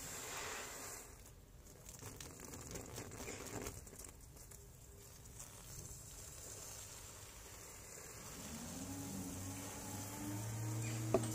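Water spraying and pattering onto a trampoline mat as it is wetted down. A low hum with a few steady tones comes in about eight seconds in and grows louder toward the end.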